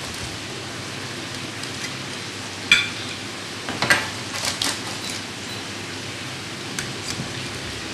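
A metal spatula and knife clicking and scraping lightly against a baking tray and a ceramic plate a few times as food is lifted and set down, the sharpest click about three seconds in, over a steady hiss.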